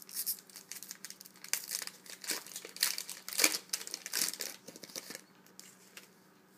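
Foil wrapper of a 2012 Bowman Platinum baseball card pack crinkling and tearing as it is ripped open by hand, in irregular bursts that stop about five seconds in.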